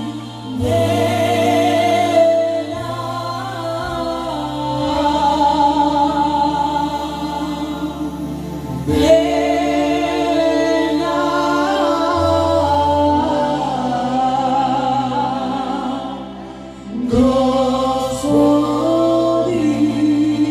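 A woman singing a Christian worship song into a microphone, with held notes and vibrato, accompanied by a Korg arranger keyboard playing sustained chords and bass notes. There are short breaths between phrases, near the start and again about three quarters through.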